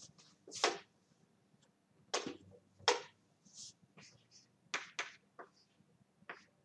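Chalk writing on a blackboard: a series of short, separate scratching strokes.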